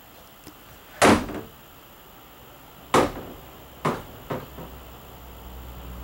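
A door being handled and knocking shut: two loud knocks about two seconds apart, then two quicker, lighter ones.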